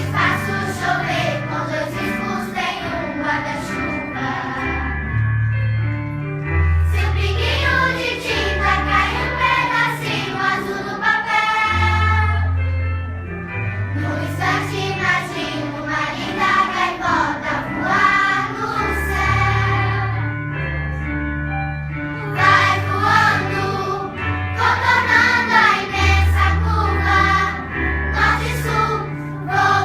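A choir singing a song over an instrumental backing with a bass line that moves from note to note.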